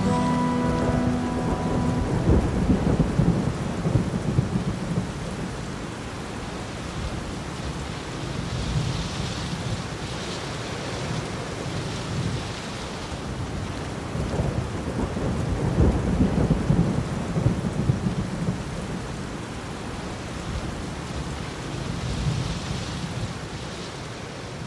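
Steady rain with deep rolls of thunder, one swelling up about two seconds in, a long one around the middle and a weaker one near the end, the whole storm fading away at the close.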